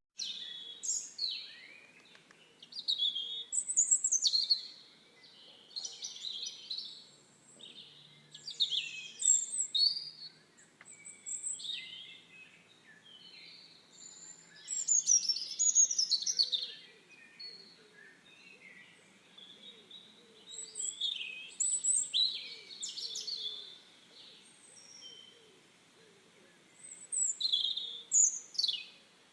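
Songbirds chirping and singing in short, varied bursts of high chirps and trills, with brief pauses between phrases.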